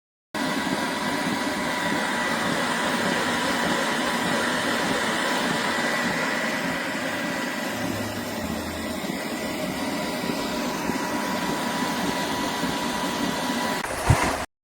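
Portable high-pressure PCP air compressor running steadily: an even mechanical noise with a thin high whine. There is a sharp knock near the end.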